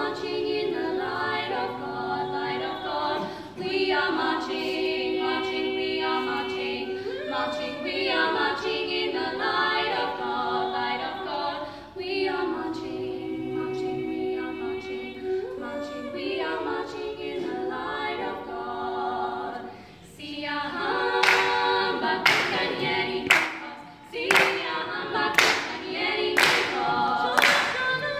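Female vocal trio singing a Zulu song a cappella in close harmony, with long held chords. From about 21 seconds in they clap in a steady beat, about once a second, under the singing.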